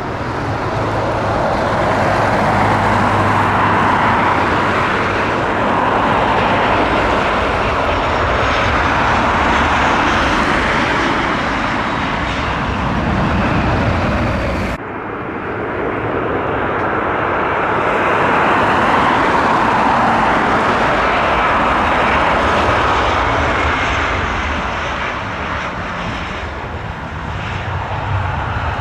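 Jet airliner engines running loud as a large jet passes close, with a faint whine sliding in pitch over the roar. An abrupt cut about halfway through, after which a second pass builds up again.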